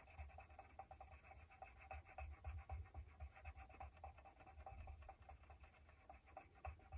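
Faint scratching of a felt-tip marker drawn over a red plastic needle of a circular knitting machine, in many short strokes, marking the last stitch.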